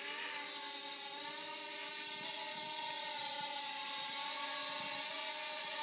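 Small remote-control toy helicopter hovering, its electric motor and rotor blades giving a steady buzzing whir whose pitch drifts a little up and down.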